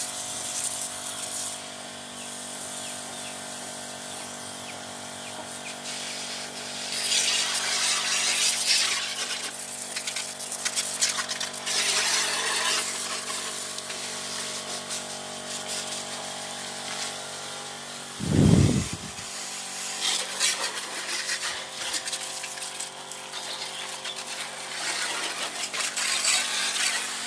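Small electric sprayer pump running with a steady whine while its water jet hisses in repeated bursts. A single short low thump comes about eighteen seconds in.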